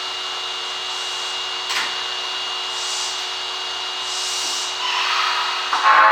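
Inside an Osaka Metro 25 series subway car: steady running noise with a steady high whine, a single click about two seconds in, and two short hisses, growing louder near the end.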